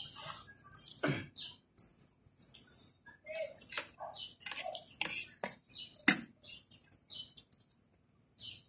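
A person eating with a spoon from a plate: irregular small clicks and scrapes of the spoon on the plate, with chewing and mouth sounds, and one sharper clink about six seconds in.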